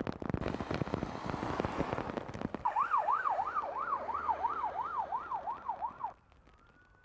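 Emergency vehicle siren in a fast yelp, rising and falling about three times a second, which cuts off abruptly near the end, leaving a fainter, slower siren wail. It is preceded by a couple of seconds of dense crackling noise with many sharp clicks.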